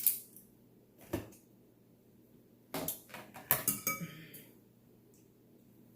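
Clinks and clatter of utensils and dishes: a sharp knock at the start and another about a second in, then a quick run of knocks about three seconds in, one with a short ring.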